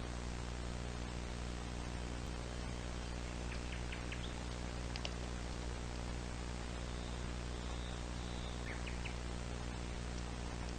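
Steady low electrical hum with a hiss over it, with a few faint short high chirps twice.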